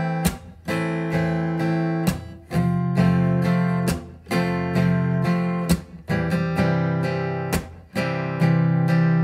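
Steel-string acoustic guitar strummed with a pick, playing an A minor, F over C and C over G chord progression in a steady strumming pattern. Sharp strokes are followed by ringing chords, with a quick down-up-down flourish on the chords.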